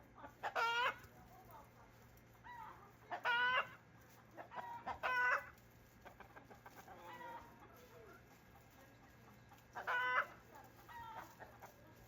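An animal calling four times in short, pitched calls of about half a second each, over a steady low hum.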